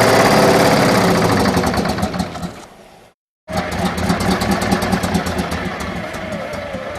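Big Bud 747 tractor's diesel engine running loudly with a rapid, even pulse. It fades out about three seconds in, breaks off briefly, then comes back a little quieter.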